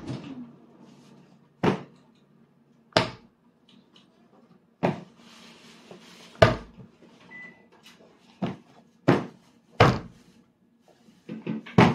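A toddler's hand slapping down on a table top, about eight sharp, irregular smacks a second or two apart.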